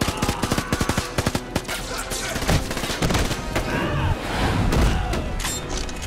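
Rapid burst of gunfire, about eight shots a second for the first second and a half, from a handgun fired during a struggle, followed by a few heavy hits. Film score music plays underneath.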